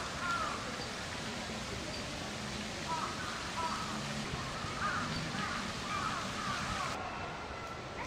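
Outdoor ambience: a steady hiss with scattered short bird calls.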